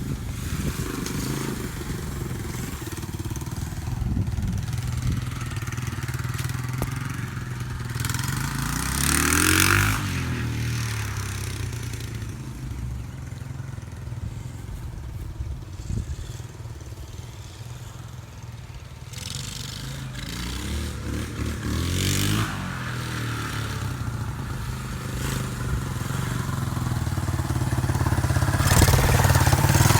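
A 1972 Honda XL250's single-cylinder four-stroke engine runs as the motorcycle is ridden around. It grows louder and swoops up then down in pitch as it passes close, about ten seconds in and again a little past twenty seconds. It is quieter in between and grows loud again near the end.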